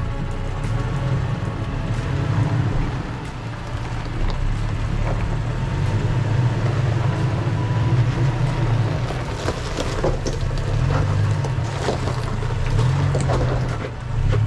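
Engine of a Toyota 4x4 running at low crawling speed on a rocky trail, its low note rising and falling a few times in the second half, with scattered clicks and crunches of rock under the tyres.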